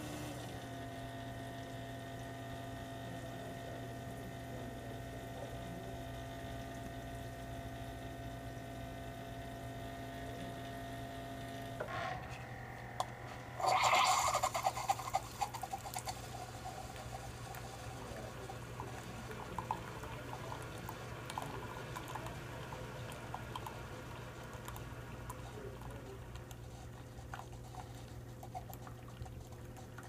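Keurig single-serve coffee maker brewing into a mug. A steady machine hum runs until about twelve seconds in, followed by a loud burst of hissing and sputtering about two seconds long. After that come irregular sputters and drips as the coffee runs into the mug.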